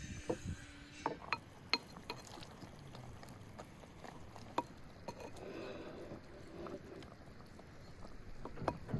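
Metal spoon clinking and scraping against a clay pot as stew is ladled out: a run of sharp clinks in the first two seconds and another about halfway through.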